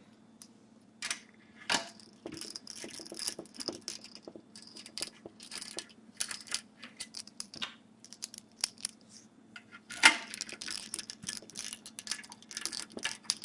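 Mounting screws being driven through a metal drive-mounting block into the side of a hard drive, with a run of small metallic clicks and scrapes as the screws and block are handled. A sharp knock stands out about ten seconds in.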